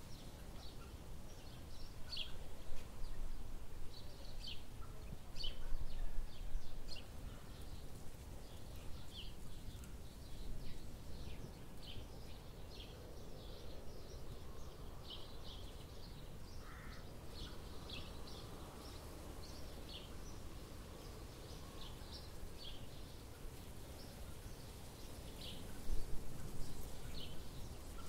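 Winter forest ambience: small birds giving short, high chirps scattered throughout, over a low steady rumble that swells louder briefly a few times.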